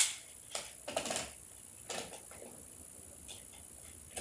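Plastic magnetic building tiles clicking and clacking together as they are handled and snapped into place: a sharp click at the start, a few more over the next two seconds, then only a faint one.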